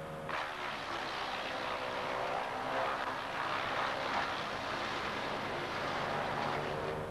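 Entec V18RS truck loader wood chipper, its Vanguard 18 hp engine running steadily. Just after the start, a loud dense chipping noise sets in as brash is fed through the blades, and it goes on until near the end.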